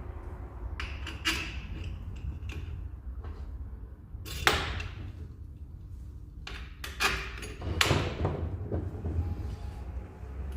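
Metal parts and bolts of an evaporative cooler motor being handled and fitted during reassembly: several separate sharp clicks and knocks, the loudest about four and a half seconds in.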